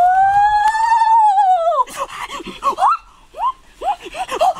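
A long, high wailing cry that rises slightly, then falls away after about two seconds, followed by a string of short yelping cries.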